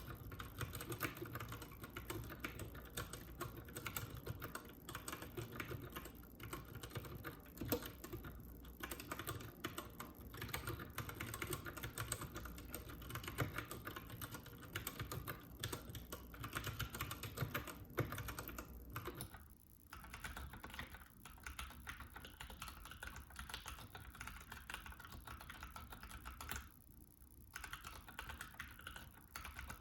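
Fast, continuous typing on a lubed Keychron K6 mechanical keyboard with Gateron Brown tactile switches: a dense patter of key presses, pausing briefly twice in the second half.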